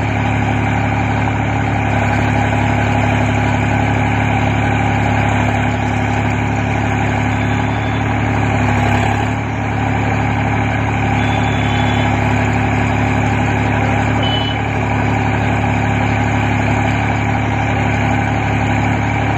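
Solis 5015 tractor's diesel engine running at a steady speed.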